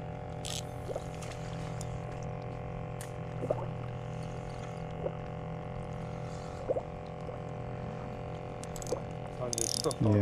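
Water dripping in a few scattered plinks over a steady low hum.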